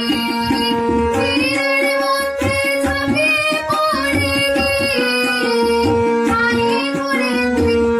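A young woman singing a devotional-style Bengali song to her own Sur Mahal harmonium, whose reedy held notes sound steadily under her voice. A soft low beat recurs about once a second underneath.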